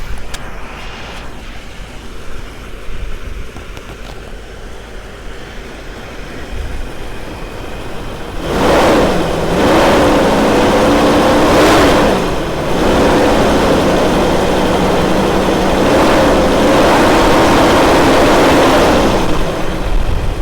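Mercedes-Benz W126 V8 engine idling, then revved about eight seconds in: two short rises and falls in pitch, then held at raised revs for several seconds before settling back near the end. It is being test-run right after a new distributor cap and rotor were fitted.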